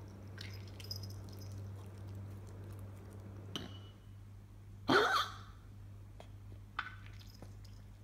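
Miniature poodle coughing in short bouts, the loudest and longest about five seconds in, with smaller coughs before and after. This is the cough of congestive heart failure, which a vet diagnosed in this dog.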